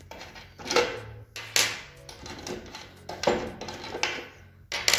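Handling noise from a concealed urinal sensor box and its parts on a hard tabletop: about four sharp knocks and clatters as the plastic box and its cover plate are moved.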